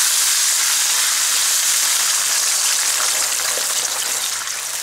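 Mutton stock sizzling in hot oil with fried onions in a wok as it is stirred with a wooden spatula; the hiss eases slowly, with scattered crackles in the second half.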